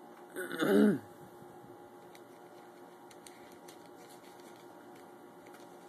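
A single short vocal sound, about half a second long, near the start, followed by faint scattered clicks and ticks.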